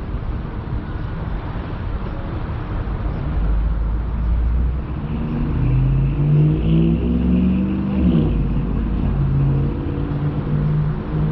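Car engine and road noise: a steady low rumble, with an engine's pitch rising and falling as it accelerates through the middle and again near the end.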